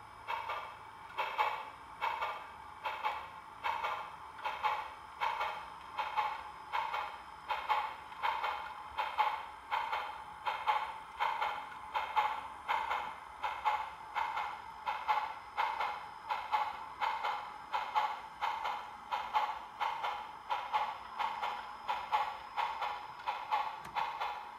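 Slow, steady steam exhaust chuffs, a little over one beat a second, from the sound of an HO-scale 2-8-8-2 Mallet model steam locomotive moving at low speed.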